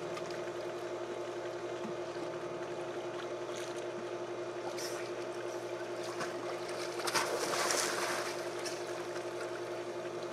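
Pool water splashing as people wade and swim, with a louder splash about seven seconds in, over a steady mechanical hum.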